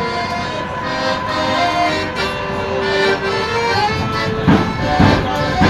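Piano accordion playing a melody with held notes, no singing. About four seconds in, three sharp knocks come roughly half a second apart over the music.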